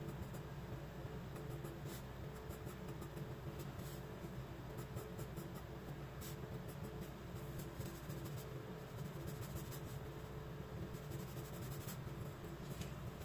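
Graphite pencil scratching on sketchbook paper in short, scattered sketching strokes, over a steady low hum.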